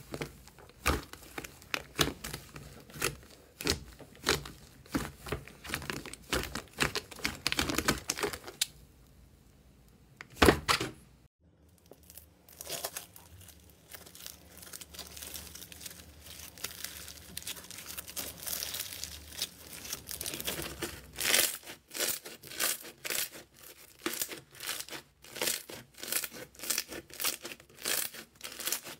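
Slime being squeezed, kneaded and pulled apart by hand, giving dense runs of sticky pops, clicks and crackles. One loud pop comes about ten seconds in. After that the sound turns to softer tearing and crackling as a textured slime is stretched, and the sharp pops grow dense again near the end.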